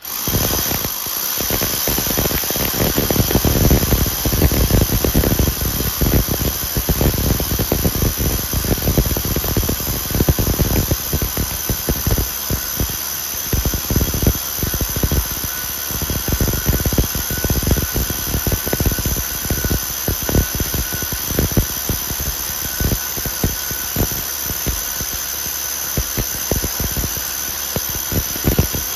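Electric drill with a core bit boring a large hole through a wall: a steady high-pitched whine over a dense, rapid rattle of the bit cutting. It starts abruptly and runs without a break.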